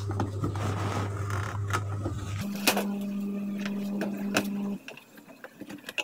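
A steady motor-like hum that steps up to a higher pitch about two and a half seconds in and cuts off near five seconds, with a few light clicks as a screw is worked out of a washing machine's plastic top panel.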